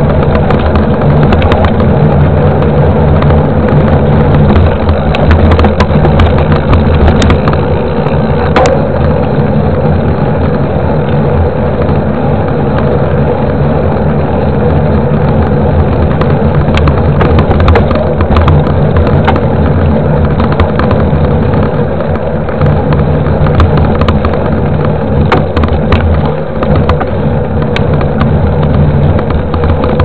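Loud, steady rumble from a camera mounted on a mountain bike riding on a paved street: wind on the microphone and the bike's road vibration, with many small clicks and rattles from the mount.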